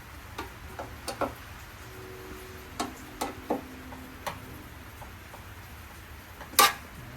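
Scattered light metal clicks and taps of screws and sheet-metal parts being handled during reassembly, with one louder knock near the end.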